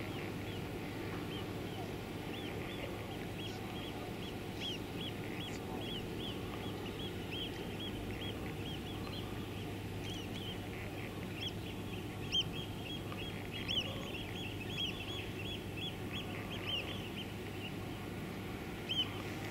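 Birds calling in a rapid run of short, high chirping calls over a steady low hum, with a few sharp clicks in the second half.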